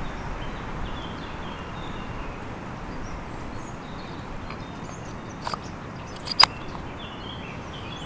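Forest background: a steady hiss with faint, short bird chirps. Two or three light, sharp clicks sound a little past the middle, the loudest a single tick.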